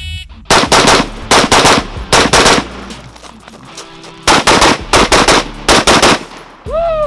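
A shot-timer beep starts the drill. Then a 14.5-inch FERFRANS piston AR-15 carbine fires a rapid string of 5.56 mm shots, stops for about a second and a half, and fires a second rapid string. Near the end a pitched tone rises and then falls.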